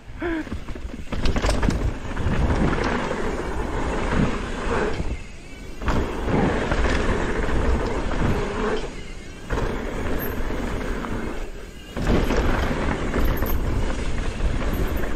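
Wind buffeting the microphone over the rumble and rattle of a downhill mountain bike rolling fast over rough dirt trail, easing off briefly a few times.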